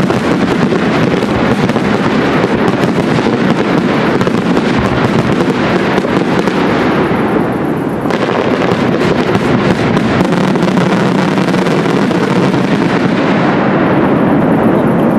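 Professional fireworks display at its finale: a dense, continuous barrage of shell bursts and rapid bangs, loud throughout, with a short dip about eight seconds in.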